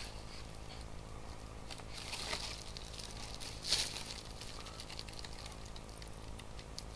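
Light plastic rustling and small clicks as a clear plastic ruler and a whipped-cream clay tube are handled on a plastic-covered table, with one louder rustle a little past halfway.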